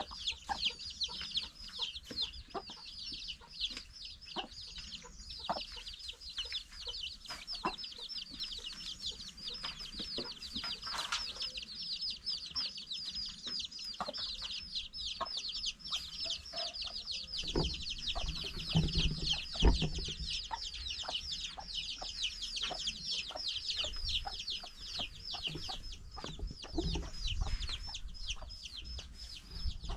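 Farmyard chickens clucking, over a rapid, continuous high-pitched chirping trill throughout. Scattered knocks and a few heavier low thumps come from about a third of the way through to near the end.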